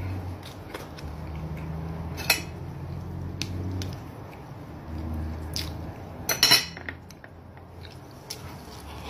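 A person eating and chewing, with mouth and lip smacks and a few sharp clicks. The loudest cluster of clicks comes about six and a half seconds in, over a low hum that comes and goes.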